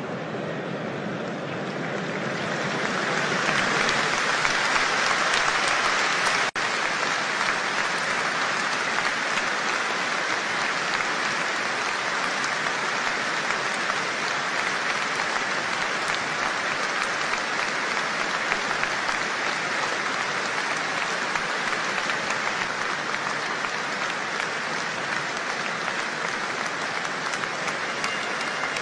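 Large stadium crowd applauding steadily, swelling over the first few seconds, with a momentary dropout about six seconds in.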